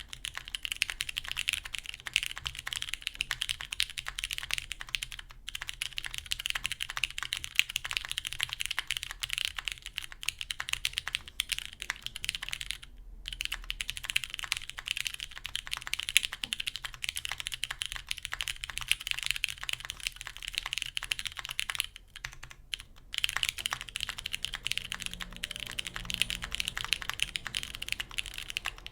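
Continuous fast typing on a gasket-mounted mechanical keyboard with lubed Cherry MX Ergo Clear tactile switches, an aluminium plate and GMK keycaps, the key presses coming in a dense stream with a few brief pauses.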